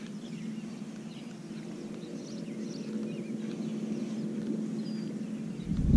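Lakeshore ambience: faint, scattered bird chirps over a steady low hum. Wind starts buffeting the microphone shortly before the end.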